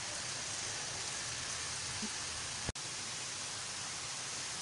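Jalebi batter deep-frying in hot ghee: a steady, even sizzle. It breaks off for an instant about two and a half seconds in, then carries on.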